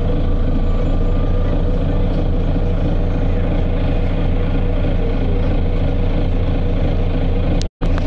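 Volvo B9TL bus's six-cylinder diesel engine and drivetrain running steadily with a deep rumble; the sound cuts out for a moment near the end.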